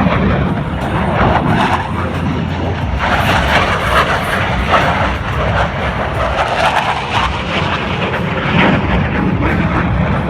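Loud rushing roar of military jet aircraft at an air show, swelling and easing as the jets pass.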